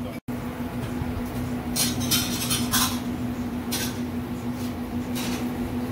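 Commercial kitchen clatter: plates and cutlery clinking several times over a steady hum.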